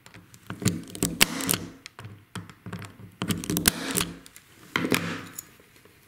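Spring-loaded impact punch-down tool snapping as it seats the Cat5e wires into the slots of an RJ-45 keystone jack: a series of sharp clicks, with rustling of the wires and jack being handled between them.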